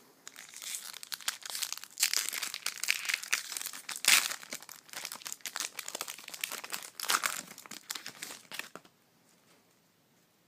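A foil trading-card pack being torn open and crinkled in the hands: a dense crackle, loudest about two and four seconds in, that stops about nine seconds in.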